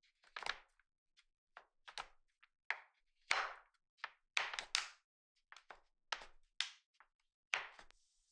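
Chef's knife chopping a slab of white chocolate on a wooden cutting board: a series of crisp chops at an uneven pace, about two a second.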